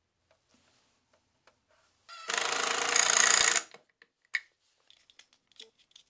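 Cordless power driver running for about a second and a half, driving a screw through a plastic junction box into hardwood. A few light plastic clicks follow as the box's lid is handled.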